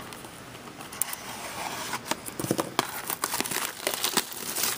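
Plastic shrink-wrap being torn and crinkled off a box of trading cards: an irregular run of crackles and rustles that gets busier after about a second.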